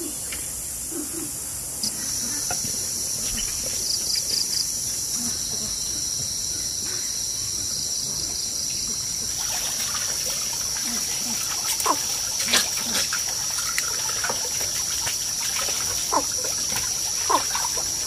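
Steady, high-pitched drone of insects such as crickets or cicadas, with a second insect voice joining about two seconds in. From about halfway, scattered small clicks and splashes of water sound over it.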